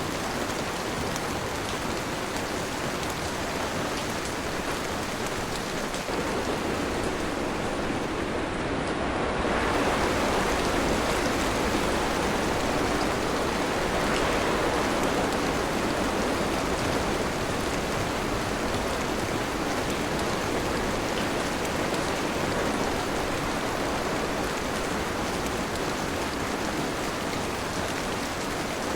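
Steady rain falling, a continuous hiss of rainfall that swells louder about ten seconds in and then slowly eases back.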